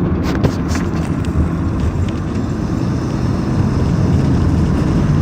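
Car driving on a potholed road, heard from inside the cabin: a steady low rumble of engine and tyres, with a couple of sharp knocks about half a second in.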